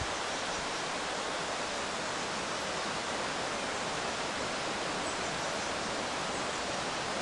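Steady, even rushing of river water, the River Severn flowing under the bridge.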